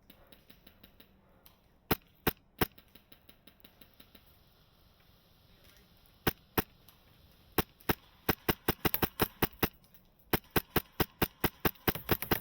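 Airsoft guns firing: faint scattered pops, three loud close shots about two seconds in, then a near-continuous string of rapid shots, several a second, through the second half.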